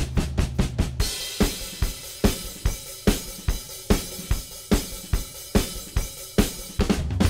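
Background rock music with a drum kit alone: a quick run of hits, then a steady beat of snare, bass drum and cymbals. The rest of the band comes in right at the end.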